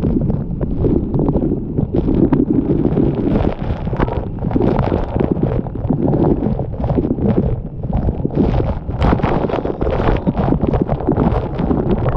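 Sgwd yr Eira waterfall in heavy flood, heard from right beside the falling water: a loud, steady rush with a deep rumble. Spray and gusts buffet the microphone all the way through.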